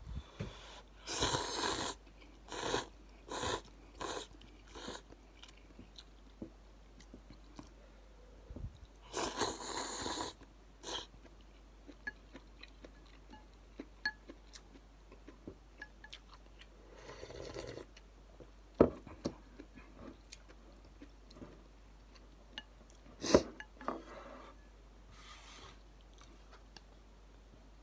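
A person slurping and chewing instant ramen noodles: a long slurp about a second in, then several short ones, another long slurp around ten seconds in, and softer chewing between. Sharp clicks of wooden chopsticks against a ceramic bowl, twice standing out in the second half.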